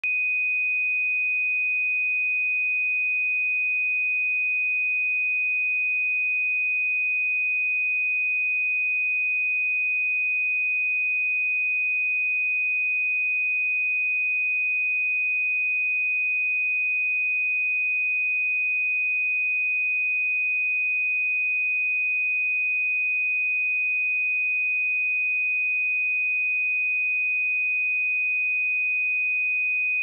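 A pure 2495 Hz sine-wave test tone, one steady high-pitched pitch held without change, generated for checking speakers and headphones.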